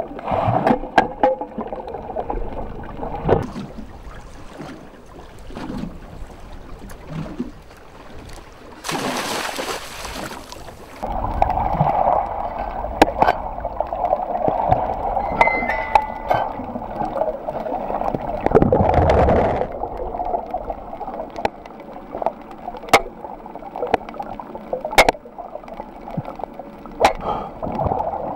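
Underwater ambience: muffled rushing water with many scattered sharp clicks. A loud rush of bubbles comes about nine seconds in and lasts about two seconds, and a lower swell of water noise follows around nineteen seconds in.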